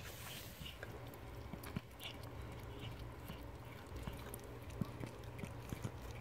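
Mother cat licking and chewing at the afterbirth of a newborn kitten: faint, irregular wet clicks.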